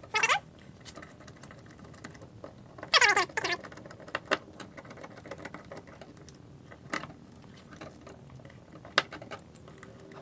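Hand screwdriver turning screws into a trolling motor's motor housing, with light clicks and taps of metal and plastic parts and two short falling squeaks, one near the start and one about three seconds in.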